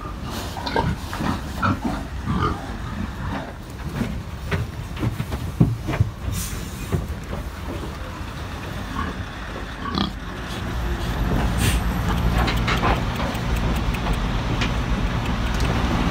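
Pigs grunting and shuffling, packed in a livestock trailer, with a few sharp knocks against the trailer's metal sides. From about two-thirds of the way through, the lorry's engine runs as a steady low drone under them.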